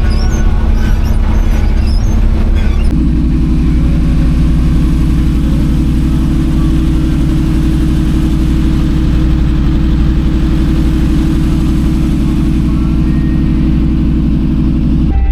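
1965 GMC pickup truck being driven, its engine and road noise making a loud, steady low drone. The sound changes abruptly about three seconds in, then holds steady at a cruising pace.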